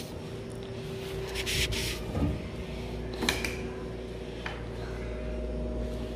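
Refrigerator door being opened and a plastic water bottle pulled from the door shelf: a few sharp clicks and a short rustle over a steady low hum.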